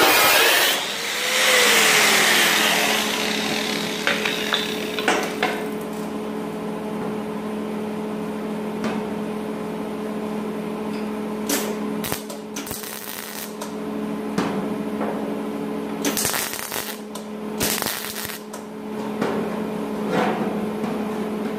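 An angle grinder on sheet metal runs for the first few seconds and winds down. Then, over a steady hum, come several short harsh bursts of metalwork noise a few seconds apart.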